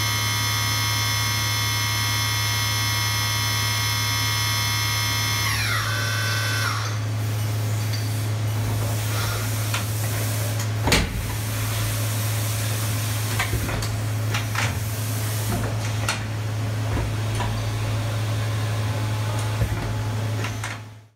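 Haas VF-2SS CNC mill's high-speed spindle whining with several steady tones, then winding down and stopping about six seconds in. After that a steady low machine hum remains, with scattered clicks and clunks from the tool-change mechanism, the loudest a knock about eleven seconds in.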